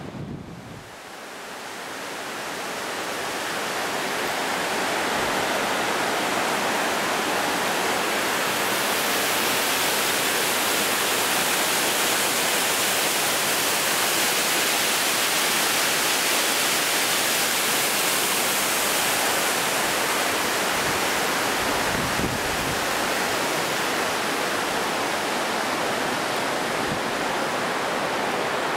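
Steady rushing of fast river water over rocks, fading in over the first few seconds and then holding even.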